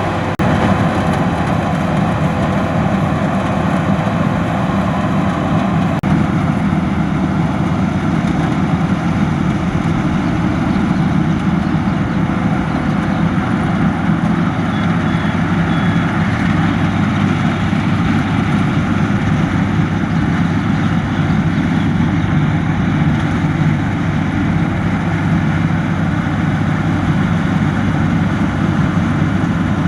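Combine harvester running steadily, its engine and machinery giving a constant, unbroken drone.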